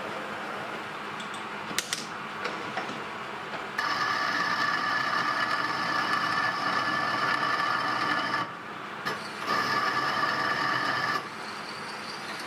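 A workshop machine running steadily, with a couple of clicks about two seconds in. Then two spells of a louder, steady high whine start and stop abruptly: one of about four and a half seconds, and after a short break one of about two seconds.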